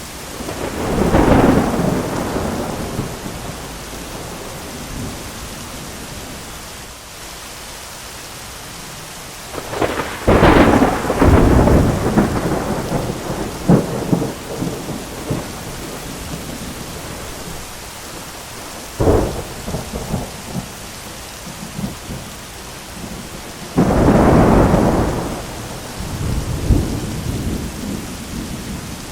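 Thunderstorm: steady heavy rain with repeated thunder. Rolling thunderclaps swell about a second in, again around ten seconds in with crackling strikes after it, a sharp crack a little later, and a last rumbling peal near the end.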